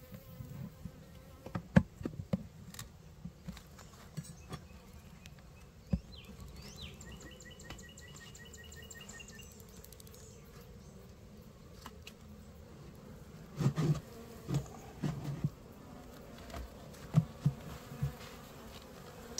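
Honeybees buzzing in and around an opened Layens hive, with scattered clicks and knocks of a steel hive tool and hands on the wooden top bars.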